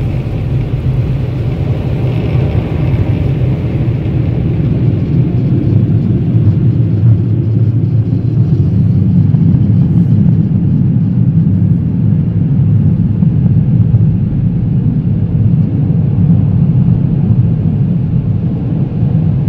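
Automatic car wash air dryer blowers running, a loud, low, steady noise heard through the closed SUV's cabin. Over the first few seconds a hissing water spray runs with it, fading out about four seconds in.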